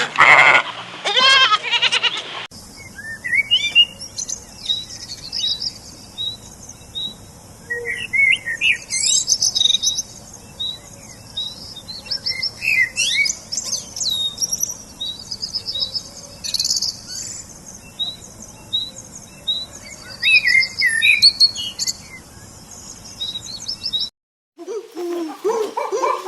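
Small birds chirping, many short high calls overlapping for about twenty seconds. This follows a goat or sheep bleating at the very start.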